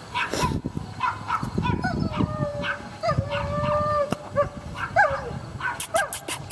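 A dog yipping and howling: short high yips, then one long, steady howl held for about two seconds, then more yips.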